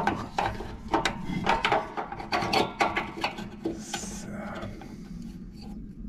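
Quick, irregular clicks and rubbing of a vehicle's plastic-sheathed wiring harness being handled and pulled apart by hand. It eases off about four seconds in, after a short hiss, into quieter handling.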